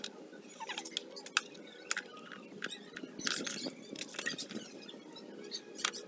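Kitchen knife cutting fresh cucumber and long beans by hand, a string of irregular crisp clicks and snaps as the blade goes through.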